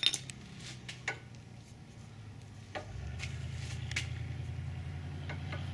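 A few sharp metal clicks and taps as a new disc brake pad is handled and fitted into the caliper bracket's clips. A low steady hum comes in about three seconds in.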